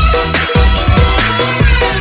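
Electronic dance music with a heavy bass beat and synth lines.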